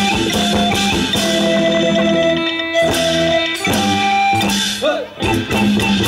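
Isan lam klon ensemble playing an instrumental passage: a plucked lute line over steady held notes and light drum hits. Near the end a few wavering pitched curves come in.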